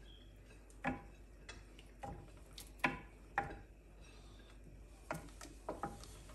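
Wooden spoon stirring a thick cheese sauce in an aluminium pot, knocking against the pot's side in scattered light taps, about seven in all.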